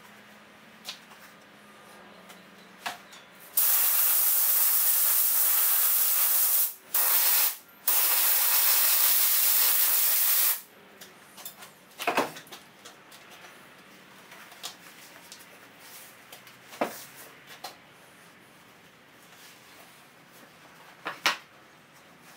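Hissing spray of contact adhesive in three bursts: a long one starting about three and a half seconds in, a short one, then another long one that stops about ten and a half seconds in. Light clicks and knocks from handling the foam and cover follow.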